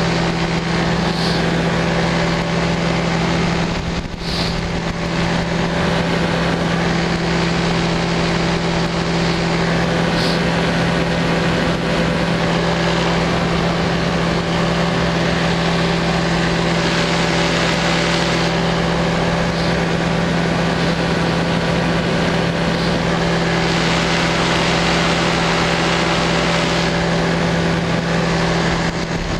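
Light aircraft engine running at a steady cruise in flight, a constant drone with a strong low hum, with wind noise over the microphone.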